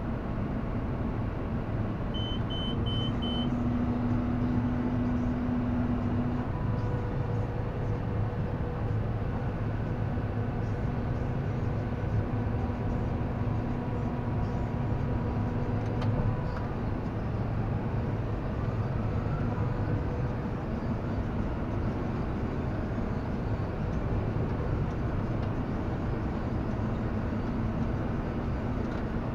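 Tractor engine running steadily under load while pulling a John Deere round baler that picks up hay, heard from inside the cab as a continuous drone with machine hum. Four short high beeps about two seconds in.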